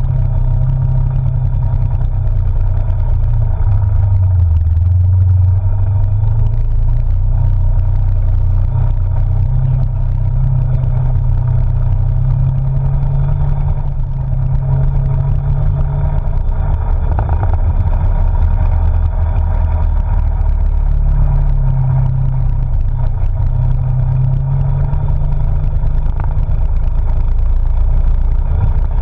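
Polaris RZR side-by-side's engine running under way, heard from inside the open cab, its drone rising and falling in pitch with the throttle.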